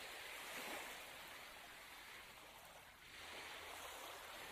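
Small waves washing up onto a sandy shore, faintly, in two swells, one lasting about three seconds and a shorter one near the end.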